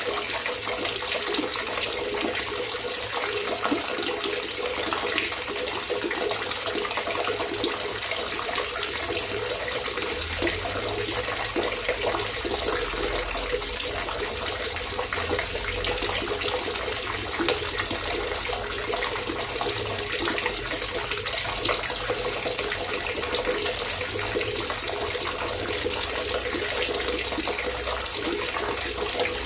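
Gurgling, trickling water running steadily, with no breaks. A low rumble joins about ten seconds in and comes and goes.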